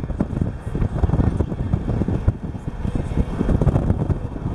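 Wind buffeting the microphone from a moving car, with steady road noise from the car underneath.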